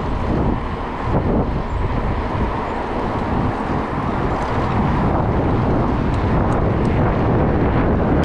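Steady rumble of road traffic mixed with wind rushing over a bicycle-mounted GoPro's microphone while riding.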